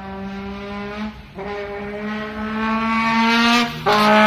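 Trombone played to mimic a motorcycle accelerating through the gears: a held brass note that slides steadily upward, breaks off briefly about a second in and again near the end, and starts lower each time to climb again, like gear changes.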